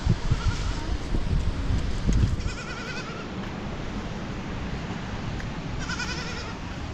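Goats bleating: three short wavering calls, the clearest about two and a half and six seconds in, over a low rumbling noise that is strongest in the first two seconds.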